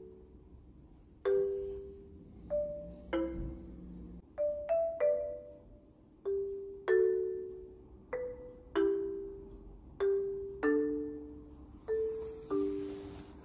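Background music: a slow melody on a mallet instrument such as a marimba, struck notes often sounding two at a time, each starting sharply and ringing away, about one or two notes a second.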